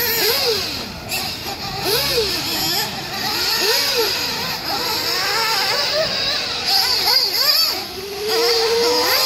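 Nitro RC buggy engines, among them a fully ported OS Speed Spec 2 on a tuned pipe, running at high revs. Their pitch rises and falls every second or two as the cars speed up and slow again.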